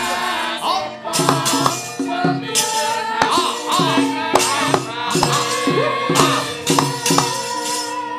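Gamelan accompaniment for a wayang kulit battle: fast, even metallic clashes, two or three a second, over bronze gamelan tones and kendhang drum strokes that bend down in pitch.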